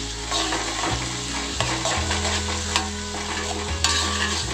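Sliced shallots, garlic, chilli and tomato sizzling in hot oil in a metal wok, stirred with a metal spatula that scrapes and clicks against the pan.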